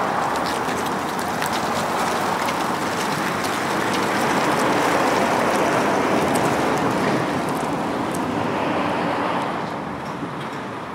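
A pickup truck towing a loaded trailer drives away across pavement, giving a steady rush of tyre and engine noise with scattered faint ticks in the first half. The noise fades near the end.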